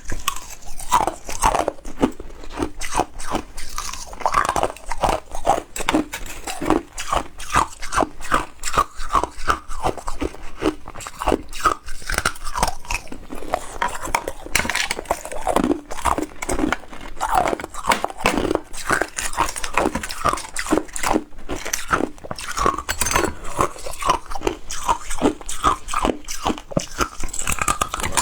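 Ice being bitten and chewed: rapid, continuous crunching and cracking of ice between the teeth.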